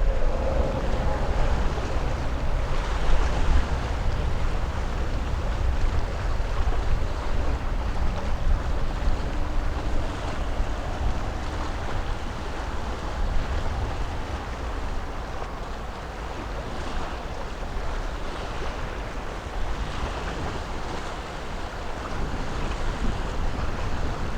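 Jet airliner engines roaring as a rushing noise that swells and eases slowly, with wind buffeting the microphone as a deep rumble.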